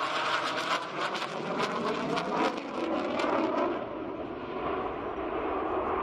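MiG-35 fighter jet engines roaring in a flypast, with a crackling edge through the first half. A little over halfway the sound turns to a duller, steadier rumble.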